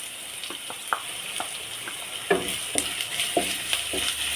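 Oil sizzling in a non-stick kadai as chopped ginger is added to frying curry leaves, garlic and chillies and stirred with a wooden spatula. The spatula knocks and scrapes against the pan about ten times, at irregular intervals, over a steady hiss of frying.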